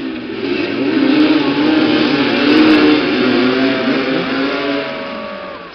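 Several motoball motorcycles revving and running together, their engine notes overlapping and rising and falling in pitch. Loudest in the middle, fading toward the end.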